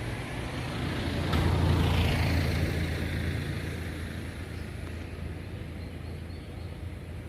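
Low rumbling outdoor noise that swells about two seconds in and then slowly fades.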